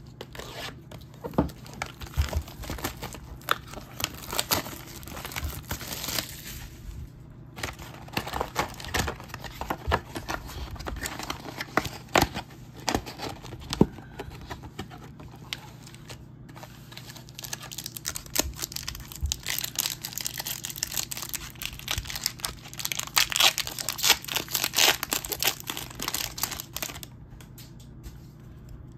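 A Topps Chrome Formula 1 trading card pack's wrapper being crinkled and torn open by hand, in dense crackling bursts that are busiest in the second half.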